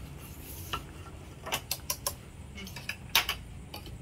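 A utensil clinking and tapping against a metal cooking pot as soup is stirred: a string of sharp clicks, the loudest a little after three seconds in, over a steady low hum.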